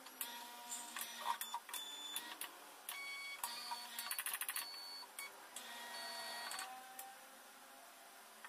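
Mindray BC-2600 hematology analyzer running its startup tubing test: its valves click and its motors whir in short spells, with a fast rattle of clicks a little after four seconds in.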